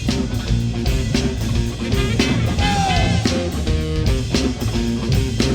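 Rap-rock band playing live in an instrumental passage: electric guitar over bass and a steady drum-kit beat, with one bent, gliding note about halfway through.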